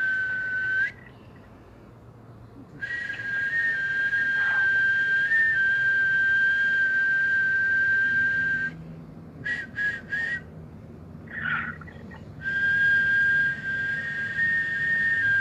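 A man whistling long, steady high notes, each held for several seconds and lifting slightly in pitch as it ends. About two thirds of the way through there are a few short whistles before the long notes resume.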